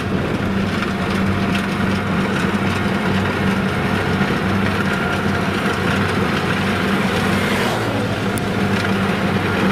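Kubota DC-70G rice combine harvester running steadily with its diesel engine under load and the threshing drum engaged, as it cuts rice through soft, muddy ground.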